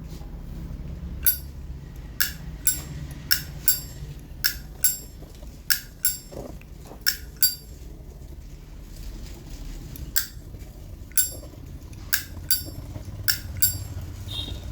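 Vintage 1967 Zippo lighter's hinged lid being flipped open and snapped shut again and again: sharp metallic clicks with a brief ring, mostly in pairs about half a second apart, with a pause about halfway through.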